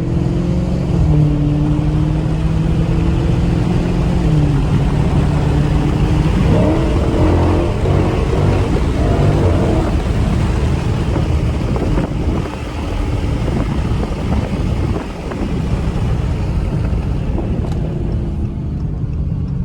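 Dodge Charger Scat Pack's 6.4-litre HEMI V8 running at a steady low note, then a loud, even hiss of tyres on wet road takes over from about four seconds in as the car gets going. The engine's steady note comes back near the end.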